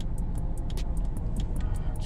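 Music with a fast ticking beat over the low, steady rumble of a car cabin.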